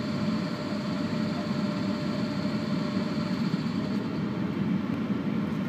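Steady hum and drone of a standing ET41 electric locomotive's auxiliary machinery, with a faint high whine that stops about four seconds in.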